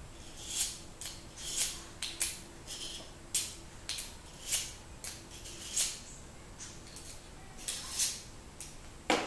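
A knife blade drawn repeatedly through the V-notch of a Smith's Pack Pal pocket sharpener: a dozen or so short, high scraping strokes at an uneven pace, pausing briefly about two-thirds of the way through, with a louder knock at the very end.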